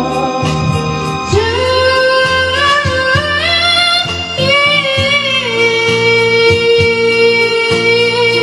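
A song with a high singing voice holding long notes over a steady beat. The voice climbs in steps for a few seconds, then holds one long note.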